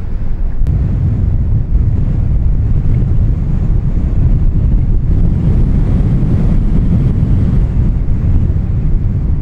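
Wind buffeting the microphone: a loud, steady low rumble of noise, with a faint click about half a second in.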